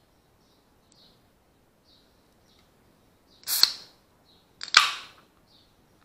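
Aluminium soft-drink can's pull tab cracking open: a sharp click with a short hiss of escaping gas, then a second, louder crack and hiss about a second later. Heard through an action camera's waterproof housing.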